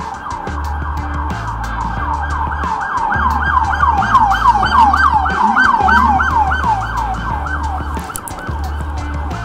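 Emergency vehicle siren in a fast yelp, rising and falling about three times a second, growing louder toward the middle and then fading as it passes.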